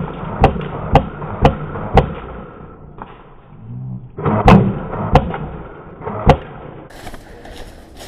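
ARP 556 airsoft electric rifle firing single shots, sharp cracks about two a second, then a pause with rustling and three more shots.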